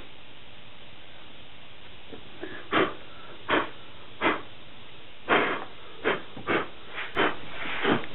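A series of about eight short, breathy puffs of air, unevenly spaced and starting about two and a half seconds in.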